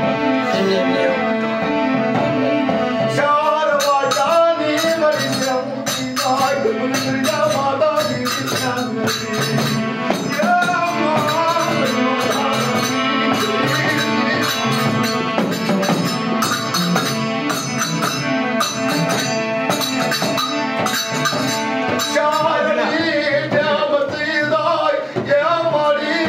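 Music: a singing voice over held drone notes, joined about three seconds in by a steady, evenly repeating rattling percussion beat like a shaker or tambourine.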